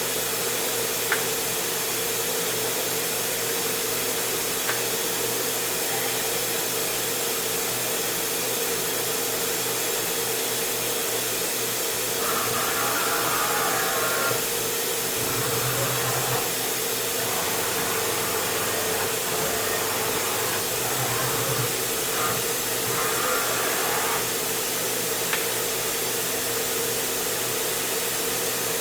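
Steady machinery hum over broad noise, with a higher tone coming in twice for a couple of seconds and a low drone shifting in the middle, plus a few faint clicks.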